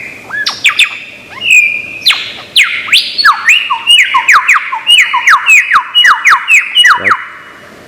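Lyrebird singing its mimicking song: a varied string of whistles and squawks, then a fast run of sharply falling whistled notes, about four a second, that stops near the end.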